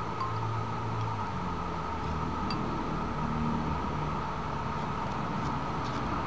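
Steady background hum and hiss, with a low motor-like drone that shifts in pitch now and then. A few faint clicks of a hen's beak pecking at soup in a ceramic bowl.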